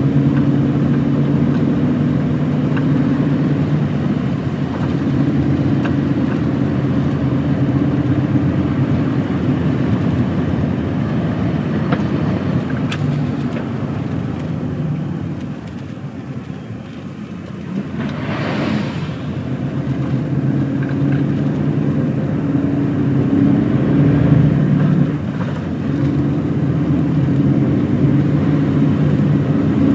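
Diesel lorry engine running on the road. It eases off a little past the middle, then comes back up under power. There is a short whoosh soon after the dip.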